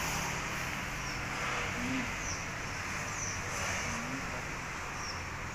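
Steady background street noise, with road traffic.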